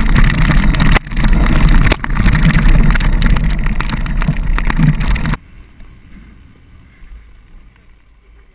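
Dirt bike engine and wind noise picked up by a rider-mounted camera while riding a rough trail, loud and dense with two brief dips. About five seconds in it drops away abruptly to a much quieter stretch.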